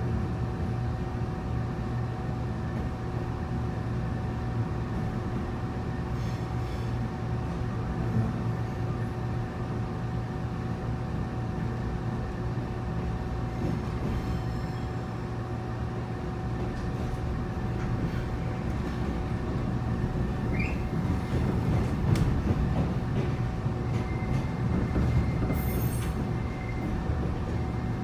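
Taiwan Railways local electric train running, heard from inside the carriage: a steady hum and rumble of wheels on the rails, growing louder about twenty seconds in. A faint steady high tone joins near the end.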